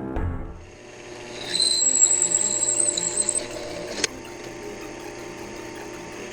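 A small power tool's motor whines steadily for about two seconds, followed a little later by a single sharp click. Background music cuts off just as it begins.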